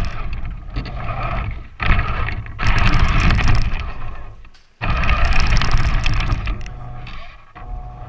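Battery-powered RC 4x4 truck driving through snow, heard through a camera mounted on the truck: rough surges of motor and tyre noise that start and stop abruptly as the throttle is worked. One surge cuts off suddenly about halfway through and the next starts at once, fading near the end.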